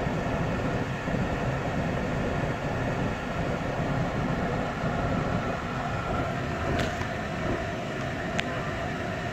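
Steady traffic rumble heard from a car stopped at an intersection: engines idling and running, with two faint clicks late on.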